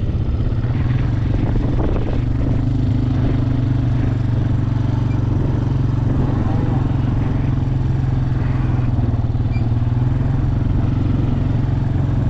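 Tractor engine running steadily nearby, a constant low drone.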